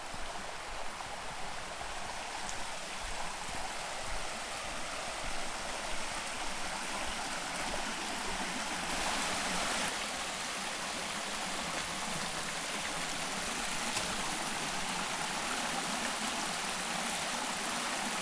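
Mountain creek rushing steadily over rocks, growing slightly louder over the first several seconds as it is approached.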